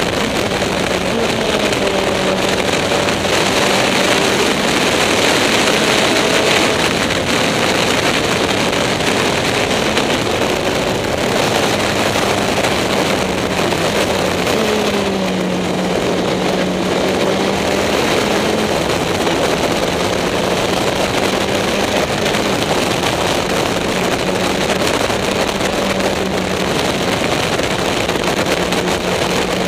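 Onboard sound of a Caterham SP/300.R racing sports prototype at speed: its supercharged four-cylinder engine running under load with air rushing over the open cockpit. The engine note holds fairly level, dips and climbs again about halfway through, then settles.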